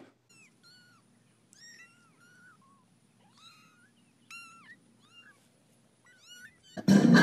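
A cat making a series of short, high mewing chirps, about a dozen small calls that rise and fall in pitch. Loud music cuts in near the end.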